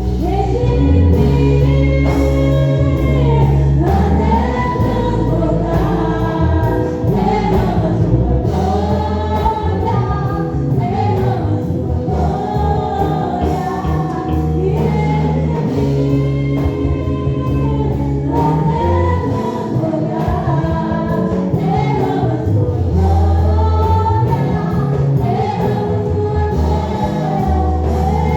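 Portuguese gospel praise song performed live: voices singing a slow melody together over steady band accompaniment with long held bass notes.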